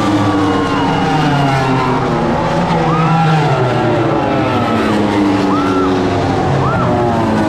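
Several 1000cc four-cylinder MotoGP racing motorcycles passing, their engine notes overlapping and gliding up and down in pitch. Two quick, short revs come about five and a half and six and a half seconds in.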